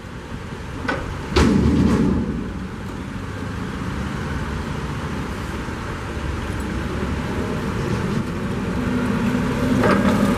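LPG engine of a Cat GP35N forklift running, with a sudden loud surge about a second and a half in and the engine note rising near the end as the forklift drives forward.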